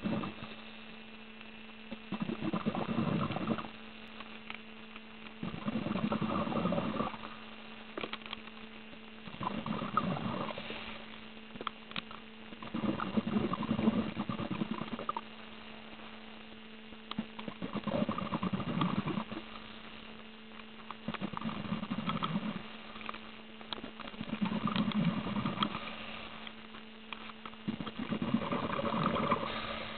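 Scuba regulator exhaust bubbles heard underwater: a bubbling rush lasting about a second and a half, coming back every three and a half seconds or so with each breath out, over a steady electrical hum.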